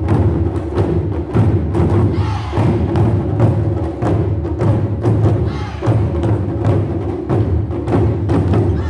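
Ensemble of Japanese taiko drums struck with sticks in a fast, steady rhythm: deep booming drum strokes mixed with sharper, higher strikes, one after another throughout.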